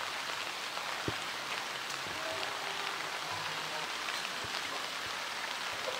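Steady rain falling on hard, wet surfaces, with a few single drops or taps heard above it.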